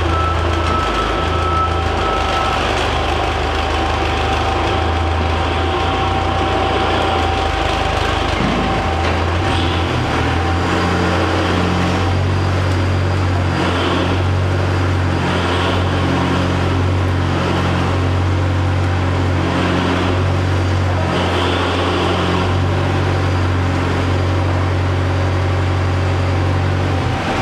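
DSSH-LTI-30 double-shaft shredder, driven by twin 30 kW electric motors, running as it shreds a cardboard bale, with a tractor's diesel engine running alongside. A steady low drone, with louder surges every second or two from about halfway in.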